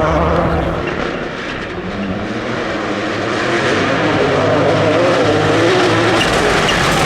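A rally car's engine at high revs. The sound dips briefly about a second in, then builds back up and holds loud, its pitch rising and wavering as the car accelerates.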